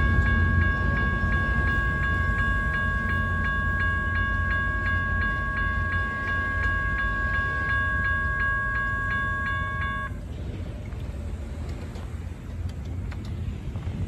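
Railroad crossing warning bell ringing with a steady, rapid ding while the gate arms rise, cutting off suddenly about ten seconds in once the gates are up and the crossing clears. A low rumble runs underneath.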